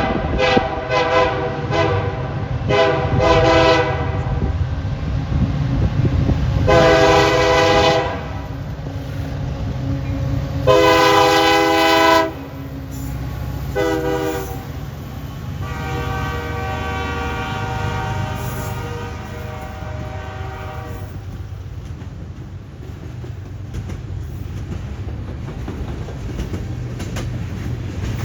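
CN diesel freight locomotive's horn: several quick short toots at the start, then a long, long, short, long blast sequence, the standard grade-crossing signal. Underneath runs the steady rumble of the diesel engines and rolling freight cars with some clickety-clack.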